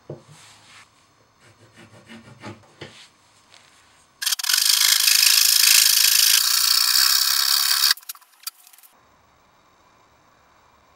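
Light taps and knocks of wood against a melamine-faced chipboard panel, then a saw cutting through the chipboard: a loud, steady rasp starting about four seconds in and lasting nearly four seconds, followed by a few faint scrapes.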